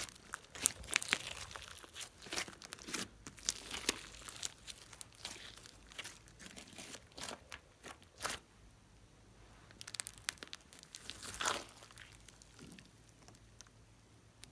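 Hands squishing, folding and pressing a large lump of glossy slime mixed with small beads, with sharp crackling and popping of trapped air. The crackles come thick and fast at first, thin out about two thirds of the way through, then pick up again briefly.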